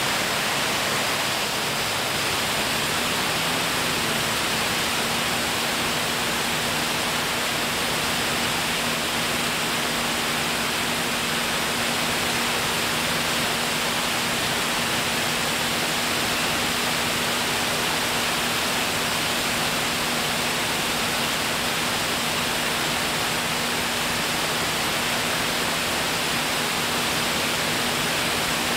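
Steady cabin noise of an aircraft in flight: an even rush of air and engine noise with a faint low hum.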